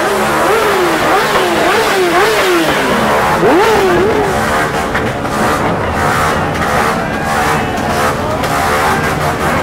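Motorcycle engines being revved, the throttle blipped up and down about twice a second, with several engines revving together over the second half.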